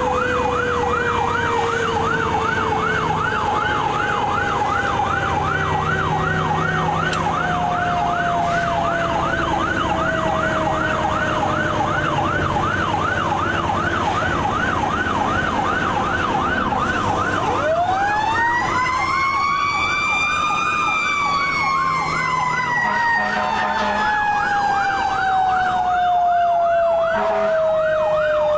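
Fire truck sirens: an electronic siren on a fast yelp, with a lower siren tone slowly falling in pitch. About two-thirds of the way through, a second siren winds up to a high pitch and then slowly falls again.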